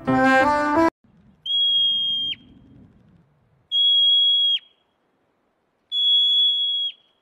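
Marmot giving three loud, high alarm whistles, each held steady for about a second and dropping sharply in pitch at its end, with short gaps between them.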